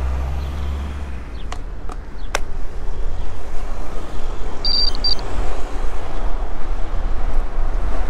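Wind rushing over the microphone and tyre noise from a road bike on tarmac, growing louder from about three seconds in as the bike picks up speed. A low engine hum at the very start, three sharp clicks around two seconds in, and a brief high electronic double beep about halfway.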